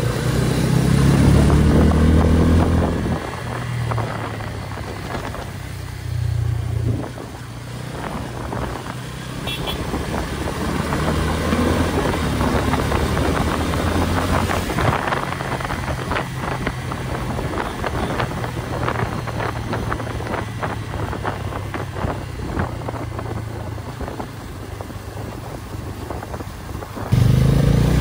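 Motorcycle engine running under way, heard from on the bike. It revs up strongly in the first few seconds, then settles into a steadier cruise under rushing wind and fluttering buffeting on the microphone, and revs up again near the end.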